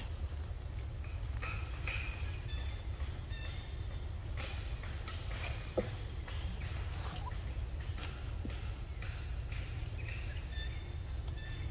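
Steady insect drone, two continuous high-pitched tones, over a low rumble, with a few short high chirps scattered throughout and a single soft click about halfway through.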